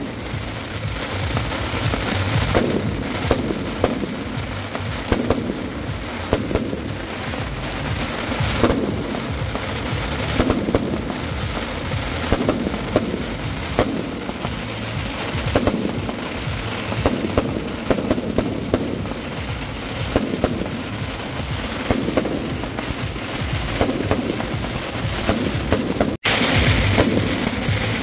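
A big salvo of firework cakes and fountains set out on the street, many firing at once: a constant crackle and hiss of sparks over a rapid, unbroken stream of pops and bangs. The sound cuts out for an instant near the end, then comes back louder.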